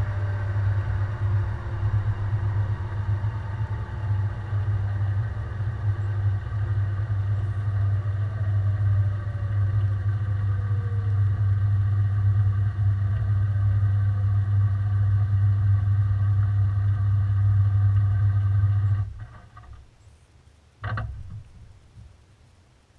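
Washing machine running at the end of its spin cycle, heard from inside the drum: a steady low hum with a faint falling whine as the drum slows. The hum cuts off suddenly near the end, and one short sound follows about two seconds later before it goes quiet.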